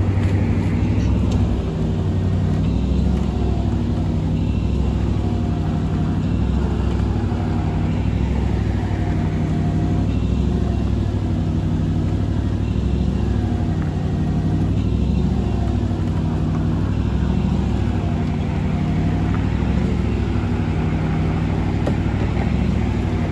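Vehicle engine running steadily, a low drone with a slight regular pulse, while a tow truck's winch cable drags a minivan up a slope.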